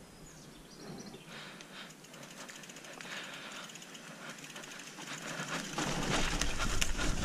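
Trek Remedy 7 full-suspension mountain bike rolling down a dirt trail: tyre noise over loose ground with many quick rattling clicks from the bike. About six seconds in, wind on the microphone comes in as a loud low rumble and everything gets louder.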